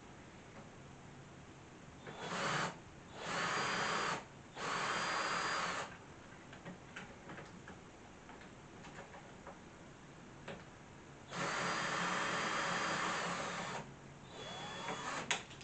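A power drill or driver running in five short bursts, the longest about two and a half seconds, backing out the doorknob's screws.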